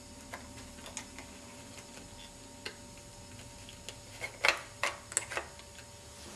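Lego plastic parts clicking and clacking as fingers work the packer mechanism in the hopper of a Lego model garbage truck: scattered single clicks, then a quick run of louder clacks between about four and five and a half seconds in.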